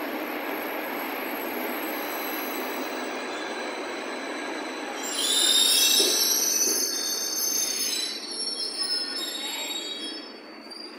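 Berlin U-Bahn HK-type train rolling along with a steady running noise. About halfway through, its wheels squeal for a few seconds, several high tones at once, and then the running noise dies down near the end.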